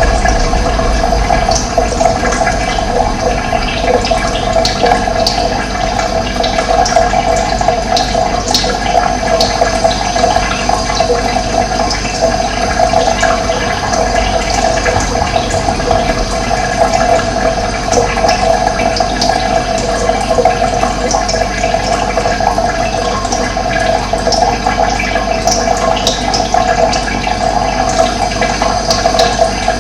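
Steady rush of running water, with short high chirps of wild birds scattered through it.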